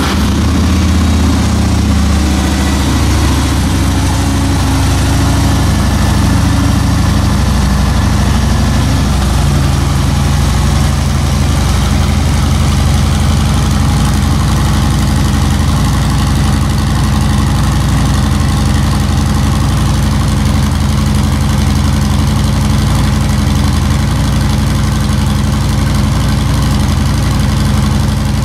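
Harley-Davidson Twin Cam 103 V-twin idling through its stock exhaust, just after starting; the idle note settles over the first ten seconds or so, then runs steady.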